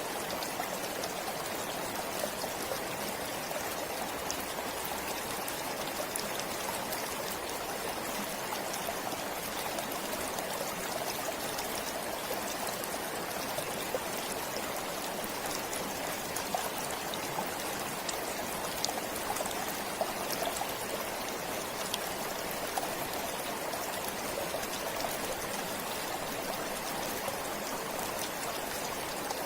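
Forest stream flowing, a steady rush of water with small scattered splashes and drips.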